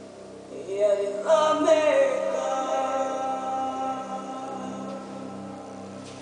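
Music with singing voices: a steady held background, then voices come in about a second in, loudest just after, and settle into long held notes that slowly fade.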